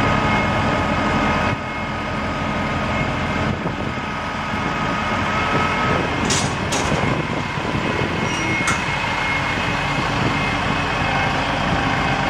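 Engines of heavy forklift and telehandler machines running steadily, with a thin steady whine over them. The level drops a little about one and a half seconds in, and there are a few short sharp clicks around six and nine seconds.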